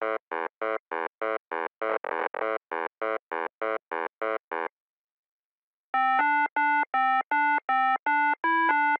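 Simple electronic synthesizer bleeps. First comes an even run of short beeps at one pitch, about three or four a second, lasting about four and a half seconds. After a pause of about a second, a tune of short synth notes at changing pitches begins.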